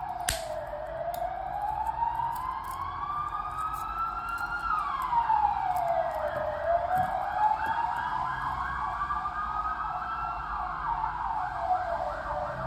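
A siren wailing, its pitch rising slowly and then dropping more quickly, over and over about every five seconds. Light sharp clicks from the steel watch bracelet being handled sound over it, one louder click just after the start.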